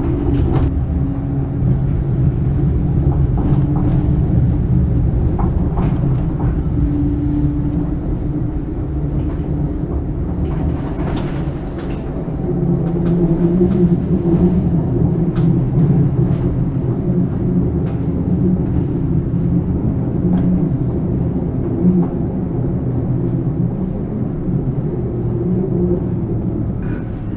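Running noise heard inside a tram on the move: a steady rumble of steel wheels on rails with a low, steady hum, and a few short clicks along the way.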